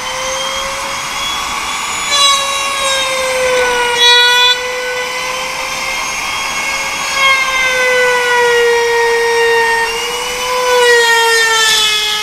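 Electric motor of an old-style aluminium router, the kind used to rout sliding and swing door frames and the wheel slots of sliding screen doors, running with a loud high whine. Its pitch dips and the sound swells several times as it is worked.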